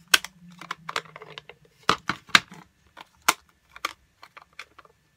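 Plastic stamp ink pad cases clacking as they are snapped shut, set down on the work table and flipped open. It is an irregular string of sharp taps and clacks, about half a dozen of them loud.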